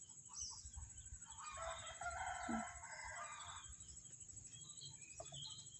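A rooster crowing once, faint, lasting about a second and a half.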